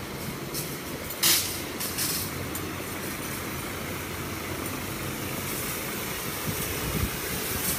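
Fire hose jet spraying water in a steady hiss, with a short louder burst of noise about a second in.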